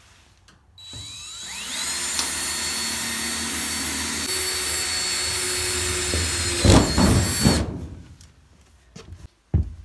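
Cordless drill boring through the sheet-steel back panel of a wardrobe: the motor spins up with a rising whine in the first couple of seconds and runs steadily under load. Near the end it gets louder and rougher for about a second, then stops.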